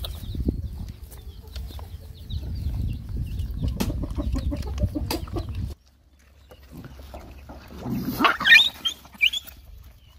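Dogs feeding, with many small wet clicks of chewing and suckling over a low rumble that cuts off abruptly a little over halfway through. About eight seconds in comes a short, loud squealing animal call.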